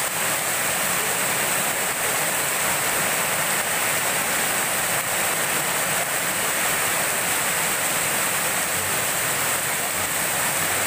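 Heavy rain pouring steadily onto a wet paved yard, splashing into standing water.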